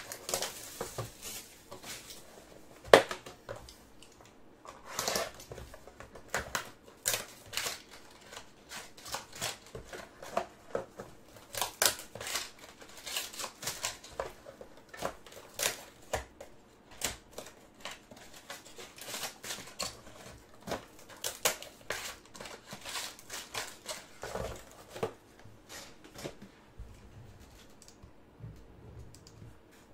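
Hands unwrapping and opening a sealed Topps Museum Collection baseball card box: plastic wrap tearing and crinkling, the cardboard box opened and plastic-wrapped packs handled, a run of crackles and clicks with a sharp snap about three seconds in. The handling dies down near the end.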